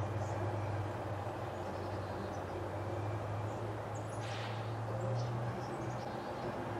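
Front-loader garbage truck's engine running at low revs with a steady drone, with a short burst of air hiss about four seconds in. Faint bird chirps sit high above it.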